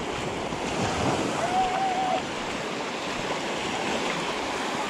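Small waves washing up and breaking on a sandy beach, with wind buffeting the microphone. A short wavering call rises over the surf about a second and a half in.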